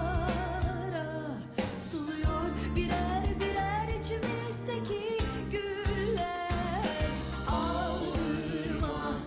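Live pop duet: a woman's voice singing a wavering melody over a band with held bass notes and a regular drum beat.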